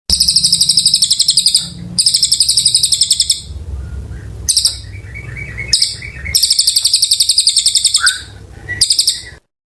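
Cililin songbird singing a very high, rapid trill in repeated phrases of a second or more, with short chirps and breaks between them. The song stops suddenly near the end.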